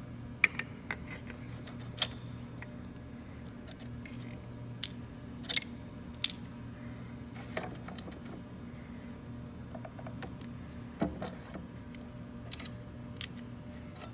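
Sharp metallic clinks and knocks of gearbox parts and hand tools being handled, about eight scattered ones, over a steady low hum.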